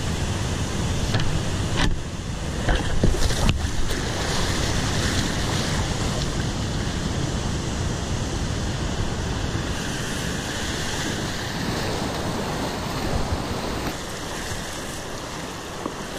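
Whitewater rushing and churning close around a kayak, with water and wind noise buffeting the microphone. A few sharp splashes and knocks about two to four seconds in as the boat drops off the ledge into the foam.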